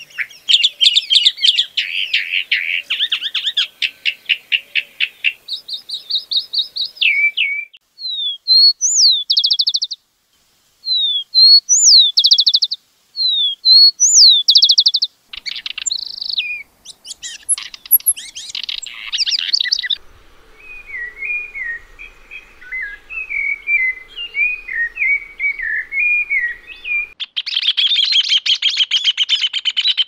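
Birdsong from three species in turn. A chalk-browed mockingbird sings varied phrases, each repeated, for about the first half. A house wren's jumbled song follows, and near the end comes a rufous hornero's loud, rapid trill.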